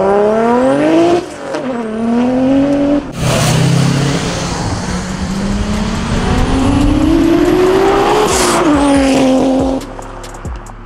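Sports car accelerating hard away, its engine revving up through the gears: the revs climb and fall back at gear changes about one and three seconds in, then make one long climb that peaks and drops near eight and a half seconds before fading.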